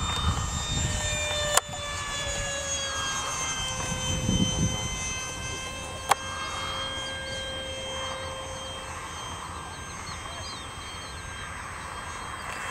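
Radio-controlled model airplane in flight: its motor and propeller give a steady whine whose pitch drifts slowly up and down as it passes. Two sharp clicks, one under two seconds in and one about six seconds in, and some low rumbling.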